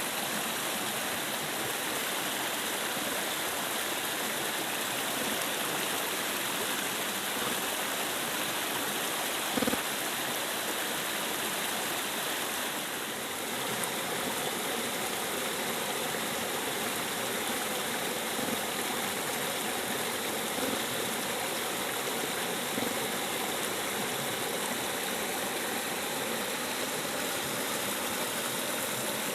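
River water rushing steadily. A single short knock comes about ten seconds in, and a faint steady hum joins about halfway through.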